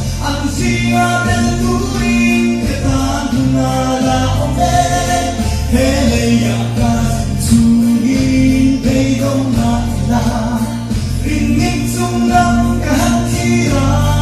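A man singing a gospel song into a handheld microphone over instrumental accompaniment with steady bass notes.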